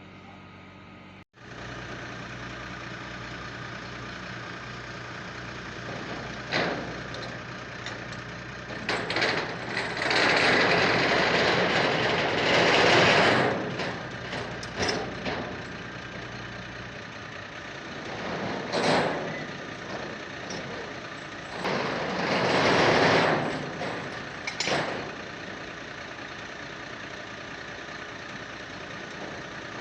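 Terex rough-terrain crane's diesel engine running steadily, with several louder rushes of noise; the biggest come about ten to thirteen seconds in and again about twenty-two seconds in.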